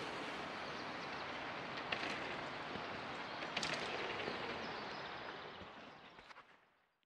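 Steady outdoor ambient hiss with a few faint clicks, fading out near the end.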